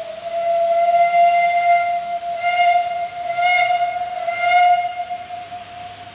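Miniature railroad locomotive whistle blown in one long steady blast on a single note with bright overtones, swelling and easing a few times before fading near the end.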